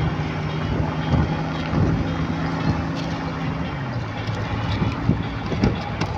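A car driving: steady engine hum and road noise with wind on the microphone. The engine note drops to a lower pitch about two-thirds of the way through.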